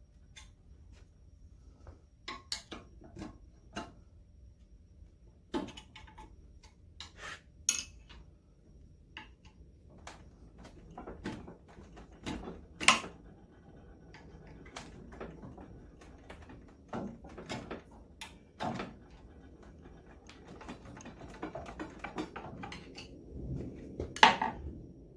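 Hand tools clinking and knocking against the cast-iron crankcase of a McCormick-Deering Type M stationary engine. The metal-on-metal taps come at irregular times, with the loudest strikes about halfway through and near the end.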